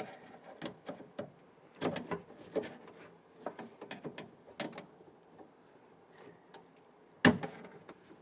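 Irregular clicks and taps of a pick and plastic rod clips being worked inside a car door shell, with one sharper knock near the end.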